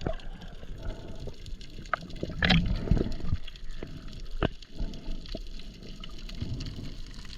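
Water sloshing and gurgling around the camera of a diver spearfishing in the sea, with a few sharp clicks and knocks scattered through it.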